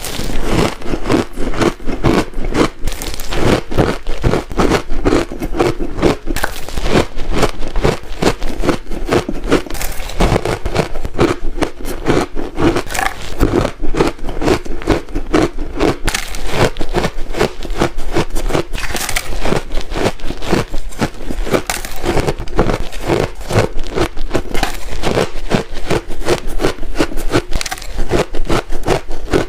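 Ice cubes crunched between the teeth, close up, in quick repeated bites: dense sharp cracks and crunches, several a second, with squeaky ice in the mouth.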